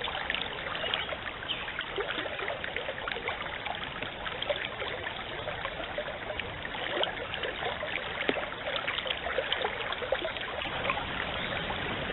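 Stream water running and babbling steadily, with many small irregular splashes and trickles, picked up by a trail camera's microphone.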